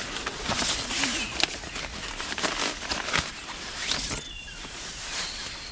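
Irregular rustling, scraping and light knocks of camping gear being handled while a tarp and hammock are set up.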